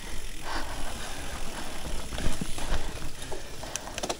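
Gravel bike ridden over a rough, muddy dirt trail, with a steady low rumble of tyre and riding noise and knocks from the bumps. A few sharp clicks come near the end.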